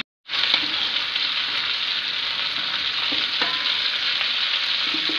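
Potato chunks sizzling steadily in hot oil in a metal karahi, fried brown and done, with a few light clinks of a steel ladle against the pan as the pieces are lifted out. The sound cuts out for a moment at the very start.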